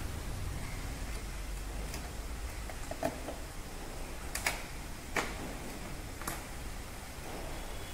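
Four sharp clicks spread over a few seconds as the fasteners along the top of a car's front bumper and grille panel are worked loose by hand, over a steady low hum.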